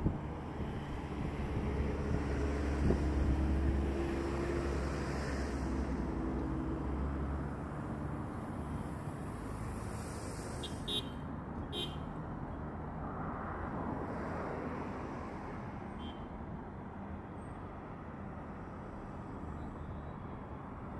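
Road traffic passing close by: a heavy vehicle rumbles past in the first several seconds, loudest two to four seconds in, then a steady wash of traffic noise.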